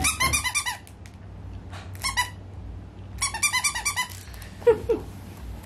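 Squeaker in a plush dog toy squeaking in three quick runs of rapid squeaks, the first at the start, one about two seconds in and a longer one about three seconds in. Near the end come two short, lower sounds.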